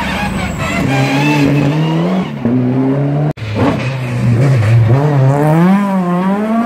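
Rally car engines revving hard as the cars come through a junction, the pitch climbing and dropping back at gear changes. After a cut about halfway in, a Ford Escort Mk2 rally car's revs rise and fall in quick swings.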